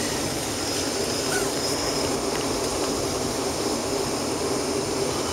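Steady cabin noise inside a Boeing 737-500 taxiing: the even hum of its CFM56 jet engines at low power with air-conditioning hiss and a faint steady high whine.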